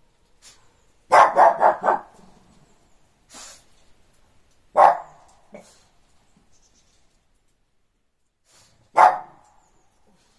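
Shih Tzu barking at other dogs: a quick string of about four barks about a second in, then a single bark near the middle and another near the end.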